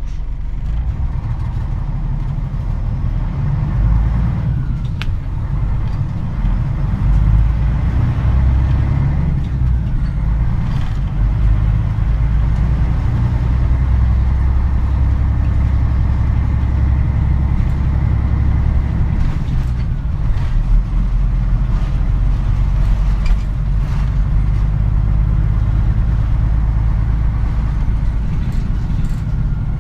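Engine and running noise of a Mitsubishi Fuso KC-MP747 city bus as it drives along, heard from inside the passenger cabin. It is a steady low rumble that grows a little louder a few seconds in, as if the bus is picking up speed.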